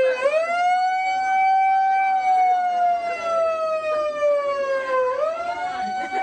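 Megaphone's built-in siren wailing: the pitch sweeps up quickly, then slides slowly down over about five seconds, and sweeps up again about five seconds in.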